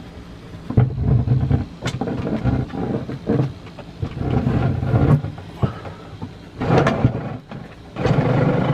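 Irregular knocks, bumps and scraping as a wooden furniture piece is handled and set in place inside a van, with several sharp clicks between longer rough bursts.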